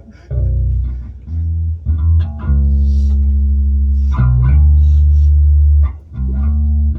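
Bass guitar playing a slow line of low notes, most of them held and ringing for a second or more.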